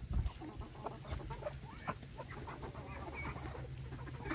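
Chickens clucking in low, scattered calls as a mixed flock of chickens and ducks feeds on cracked corn scattered on the ground.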